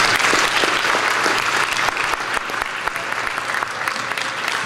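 Audience applauding, a dense clatter of many hands clapping that is loudest at the start and eases slightly after a couple of seconds.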